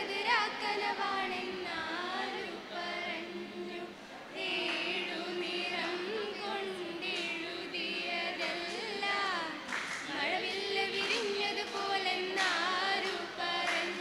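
A group of young men and women singing together into handheld microphones, with no instruments to be heard.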